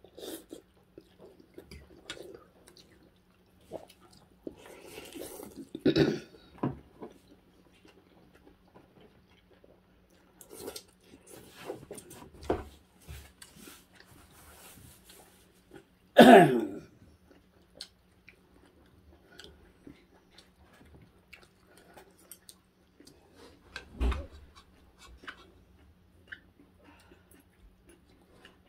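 Two people eating rice-vermicelli noodle soup at a table: quiet chewing and slurping of noodles, with spoons and forks clicking against ceramic bowls. About halfway through comes a short, louder sound that falls in pitch.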